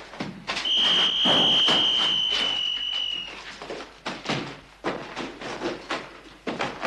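Hurried footsteps and the clatter and knocks of people scrambling through debris and past doors in a derelict house. A single loud, high, steady tone sounds about half a second in, sinking slightly in pitch, and stops after about two and a half seconds.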